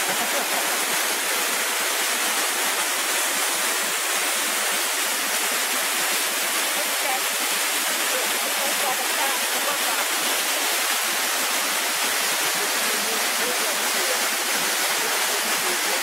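Steady rush of a waterfall and water cascading over rocks, a constant hiss-like roar without pauses.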